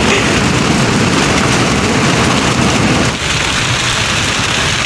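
Heavy rain and rushing air on a moving vehicle, a loud steady hiss over a low road rumble; the rumble eases a little about three seconds in.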